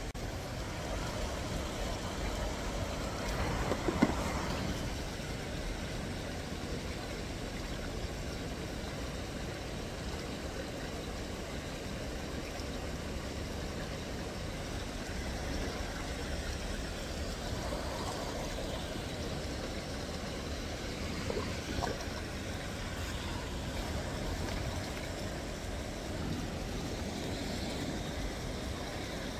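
Steady outdoor background noise beside a river: a low rumble with a hiss of flowing water, broken by a single sharp knock about four seconds in and a faint tick later.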